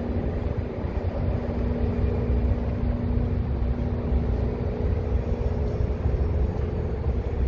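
Steady low rumble of vehicle engines and traffic, with a steady hum that stops a little over halfway through.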